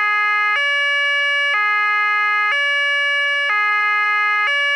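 Hi-lo police siren: two steady tones, one low and one higher, alternating about once a second.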